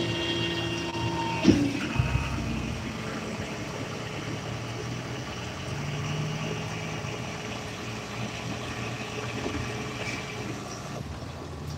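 Flatbed tow truck's engine idling steadily, with two short knocks about a second and a half and two seconds in.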